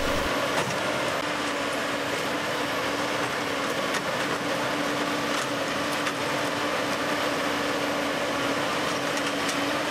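Rail-mounted tie-removal machine running steadily, its engine and hydraulics giving an even mechanical noise with a steady hum, as it works to pull out old crossties.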